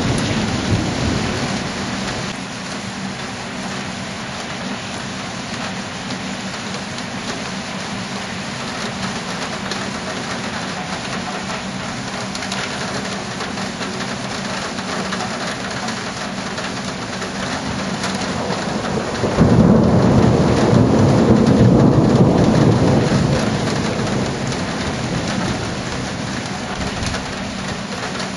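Thunderstorm: steady heavy rain, with the end of a thunder rumble dying away at the start. About two-thirds of the way through, a sudden, loud roll of thunder comes in, rumbling for several seconds before fading back under the rain.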